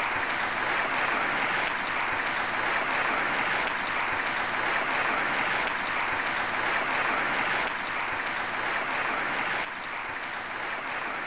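A large crowd applauding steadily, dropping a little in level near the end.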